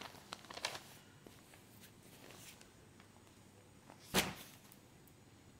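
Cotton saree cloth being handled, with a few soft rustles in the first second and one louder brush or bump of the cloth a little after four seconds in.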